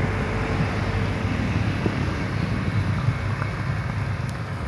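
Wind buffeting the microphone in an irregular low rumble, over the low drone of a small motor launch's engine crossing the lake.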